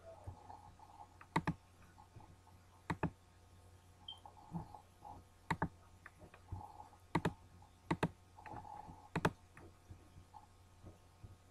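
Computer mouse button clicking, about six sharp clicks a second or two apart, most of them a quick press-and-release double, over a faint steady low hum.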